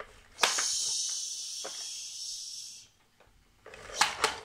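A steady hiss that starts about half a second in, fades and stops after about two and a half seconds, during pretend fire-fighting with a toy fire truck. A few short plastic knocks come near the end.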